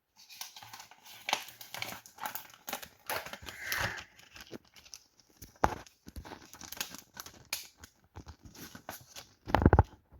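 Plastic packaging crinkling and rustling as it is handled and unwrapped, with scattered clicks, a sharp click a little past halfway and a louder knock near the end.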